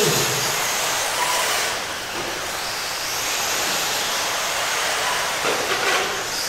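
Radio-controlled race cars running on a dirt oval: a steady hiss of motors and tyres with a high whine that swells and fades as the cars pass.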